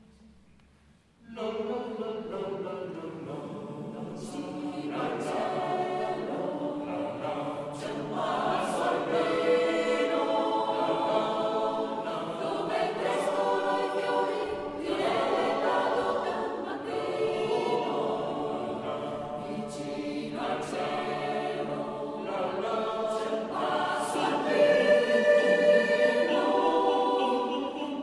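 Italian mountain choir singing a slow song in several parts, coming in suddenly about a second in after near silence.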